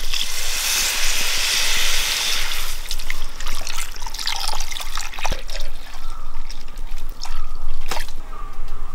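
Water poured in a stream from a clay jug into a clay pot of fried masala paste, splashing and trickling, heaviest in the first few seconds before thinning out. A few sharp clicks follow later.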